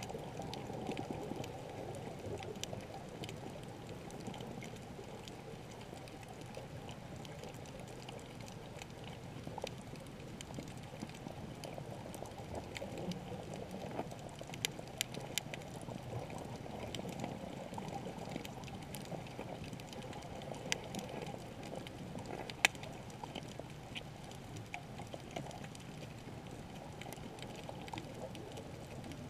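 Underwater ambience just below the sea surface: a steady, muffled wash of moving water. Scattered sharp clicks stand out, a cluster of them about halfway and one louder click about three-quarters of the way in.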